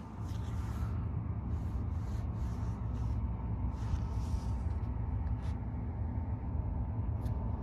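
Federal Kumano freighter's engine giving a low, steady rumble as the ship passes close by, with a faint steady hum above it.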